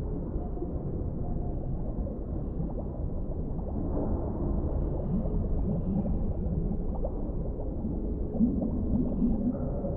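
Muffled underwater ambience: a steady low rumble with gurgling bubbles, the gurgles growing stronger about eight seconds in.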